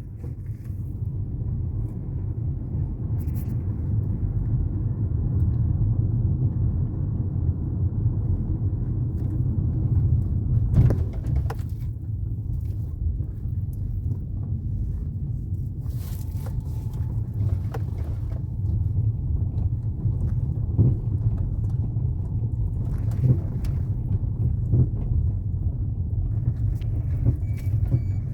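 A Ford Fusion driving over a potholed road: steady low road rumble with irregular knocks, a very loud "ploc-ploc" from the suspension as it hits bumps. Earlier shops blamed this noise on the power steering box.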